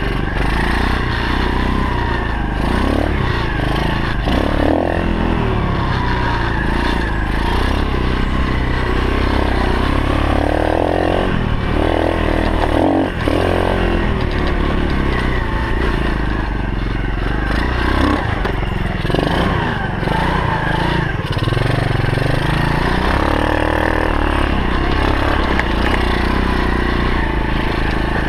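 A 125cc four-stroke single-cylinder pit bike engine running while the bike is ridden along a dirt trail, its pitch rising and falling as the throttle is opened and closed.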